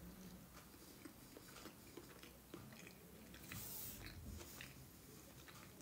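Faint chewing of a mouthful of potato, egg and sauce, heard as scattered soft small clicks of the mouth, a little louder a few seconds in.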